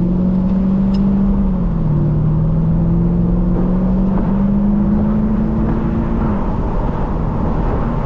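Mercedes-AMG M113 5.4-litre V8 accelerating hard, the engine note climbing, dropping sharply with an upshift about two seconds in, then climbing again before easing off near the end.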